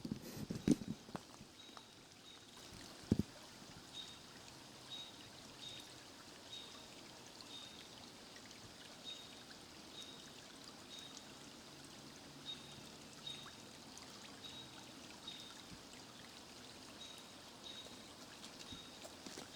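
Steady hiss of distant road traffic. A short, high chirp repeats about every half-second to second throughout, and a few soft knocks come in the first three seconds.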